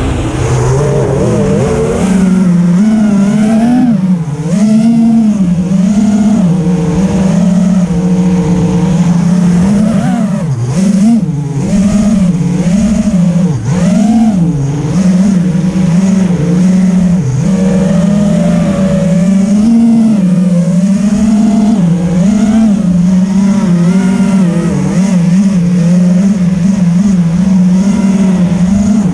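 Eachine Wizard X220 FPV racing quadcopter in flight: its motors and propellers whine continuously, the pitch rising and falling constantly with the throttle.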